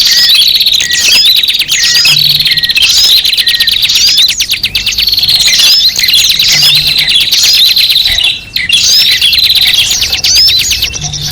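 A crowd of small birds chirping noisily together: a dense, unbroken chatter of high, overlapping chirps over a steady trill. It is a bird-lure (pikat) call recording for drawing in small birds.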